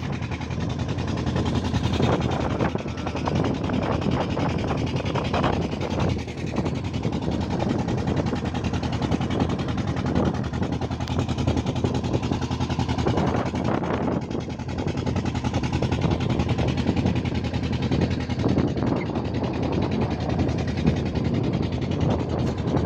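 Small fishing boat's outboard motor running at a steady cruising speed while the boat is under way.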